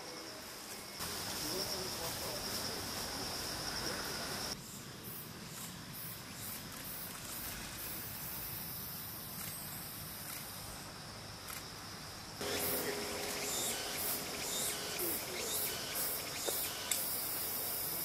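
Insects trilling and chirping: a steady high-pitched trill for the first few seconds, then a run of short, sharp high chirps in the last few seconds, with the background changing abruptly twice.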